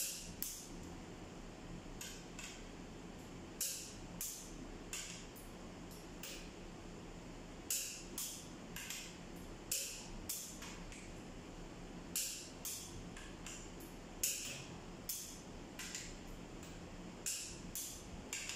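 Torque wrench clicking on the cylinder head bolts of a Toyota 13Z forklift engine as they are tightened. The clicks are short, sharp and metallic, coming singly or in quick pairs about every half second to second and a half, over a faint steady hum.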